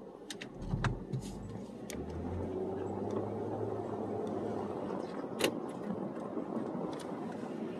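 Car engine and tyre noise heard from inside the cabin as the car drives off and picks up speed, growing louder about two seconds in. A few sharp clicks sound over it.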